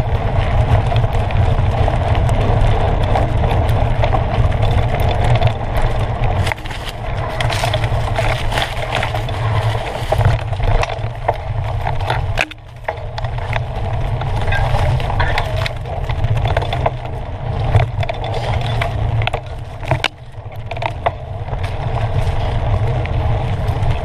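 Mountain bike riding fast down a dirt woodland singletrack: wind rumbling on the bike-mounted camera's microphone, tyres rolling and crunching over the dirt, and constant clicks and knocks as the bike rattles over roots and debris. The noise eases briefly about halfway through and again near the end.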